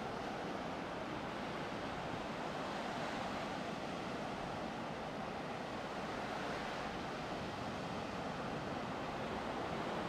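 Ocean surf washing on a beach: a steady, even rush of breaking waves.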